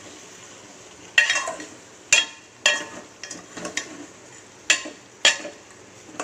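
Steel spoon scraping and clanking against a metal pot, about seven strokes, as chicken pieces are stirred into the frying masala, with a steady frying sizzle underneath.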